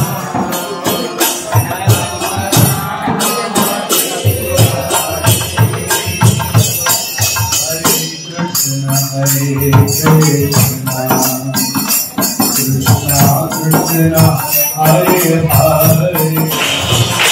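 Devotional kirtan music: hand cymbals clashing in a steady rhythm with a mridanga drum, and harmonium chords coming in about halfway through.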